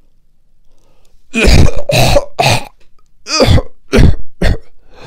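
Harsh, loud coughing: three coughs in quick succession starting about a second and a half in, then after a short pause a second fit of four.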